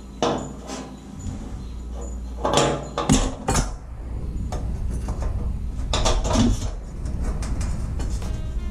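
Metal clinking and knocking as a sheet-metal pinwheel's bicycle hub is bolted onto a rusty steel pole: a few short clatters, the loudest a little past halfway through the first half and again about two-thirds of the way in.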